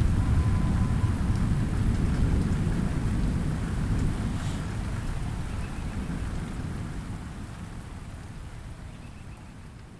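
Light rain falling steadily, with a low roll of thunder rumbling and dying away. The whole sound fades out gradually toward the end.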